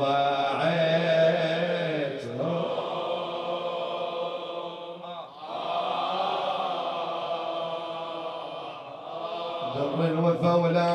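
A man chanting a Shia Muharram lament (nai) in long, drawn-out sung notes with a slight waver. There are short breaks about two, five and nine seconds in.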